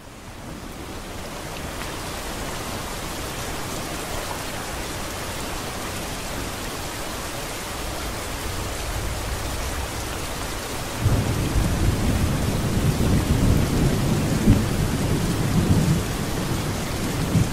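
Steady rain hiss fading in at the start, joined about two-thirds of the way through by rolling thunder rumbling low and loud.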